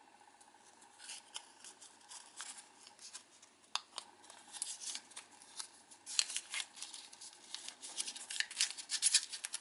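Origami paper being folded and pinched into a box shape by hand: quiet crisp crinkles and creasing clicks, scattered at first and coming thicker near the end.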